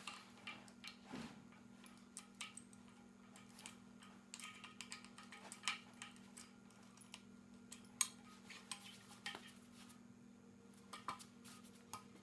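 Faint, scattered metal clicks and taps as a scooter bar clamp and its Allen bolts are handled and fitted onto the bars, with the sharpest click about two-thirds of the way through, over a faint steady hum.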